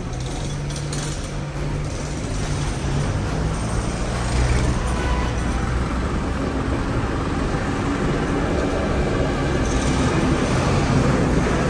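Street traffic, with vehicle engines running close by and a steady noise that grows slightly louder.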